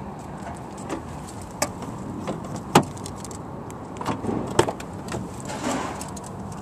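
Scattered sharp clicks and knocks of a car door being handled, with the rear door's latch clicking and the door opening about four to five seconds in. The loudest single click comes nearly three seconds in.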